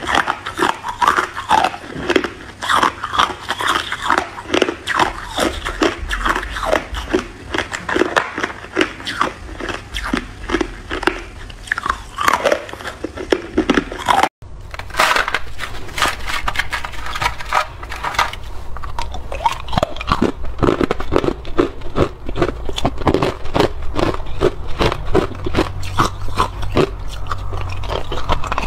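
Hard clear ice cubes being bitten and chewed close to the microphone: a dense, rapid run of sharp cracking crunches, which drops out for an instant about halfway through.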